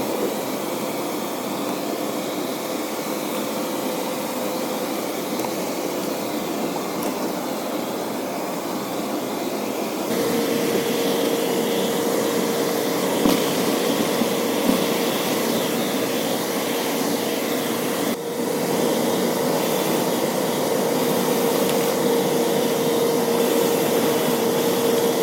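Steady machine whir with a constant hum tone, stepping up a little in level about ten seconds in.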